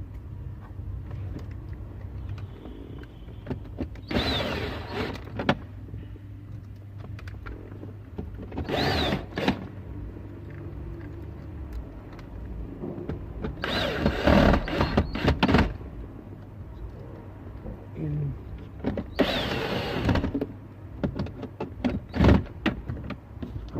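Plastic dashboard trim pieces being handled and pushed into place, in four short scraping bursts with scattered clicks, over a steady low hum.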